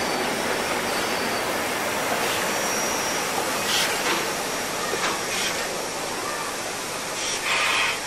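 Steam locomotive and its bogie tender rolling past close by: a steady rushing noise of wheels running on the rails, with a few faint knocks and a louder surge near the end.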